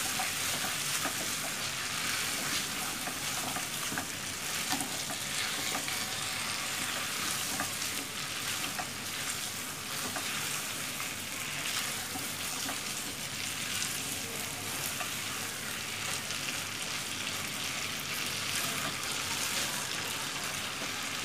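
Giant prawns and parboiled taro corms sizzling in oil and spice paste in a nonstick wok, stirred with a silicone spatula: a steady frying hiss with faint scrapes and taps of the spatula, the dry frying (kosha) stage of the curry.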